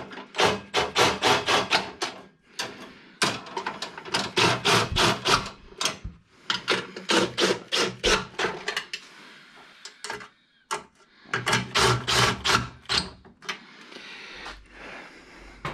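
Rapid rhythmic scraping or rubbing strokes, about six or seven a second, in four bursts of two to three seconds each with short pauses between them.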